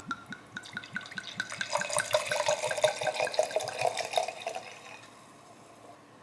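Wine poured from a bottle into a glass wine glass: quick regular glugs from the bottle neck and the splash of the filling glass, stopping about four and a half seconds in.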